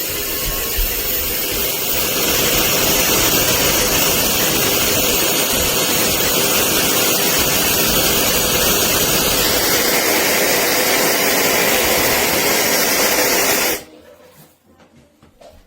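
Wavytalk high-speed hair dryer blowing a steady hiss of air. It steps up louder about two seconds in, then switches off suddenly near the end.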